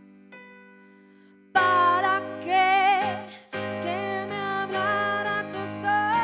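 Song with keyboard accompaniment: a held keyboard chord fades out, then about a second and a half in a voice comes in singing with vibrato over sustained chords and a low bass line.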